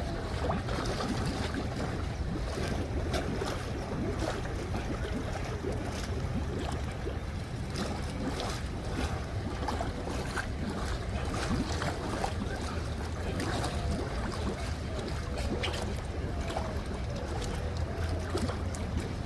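Steady rushing and splashing of a garden waterfall pouring into a pond, with a low rumble of wind on the microphone.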